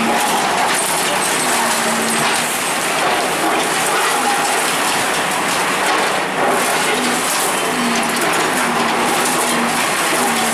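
Bulldozer at work demolishing a building: steady, loud machinery noise mixed with scattered cracks and knocks of breaking material.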